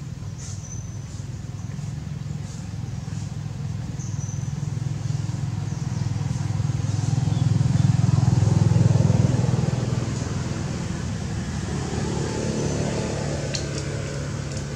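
Low engine hum of a motor vehicle passing by. It grows louder to a peak a little past halfway through, then fades.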